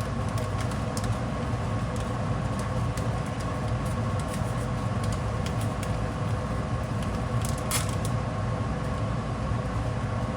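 Steady mechanical hum from a kitchen appliance, running evenly with a faint constant whine. A few light clicks and a short papery crinkle near the eight-second mark come from the seasoning packet being handled.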